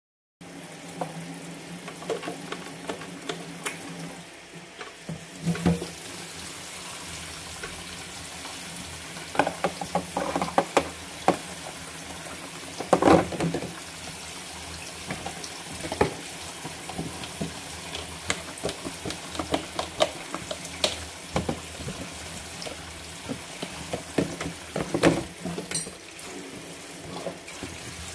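Tap water running into a stainless steel sink as plastic food containers are rinsed under it. Frequent light knocks and clatters of the containers against the sink come through the running water.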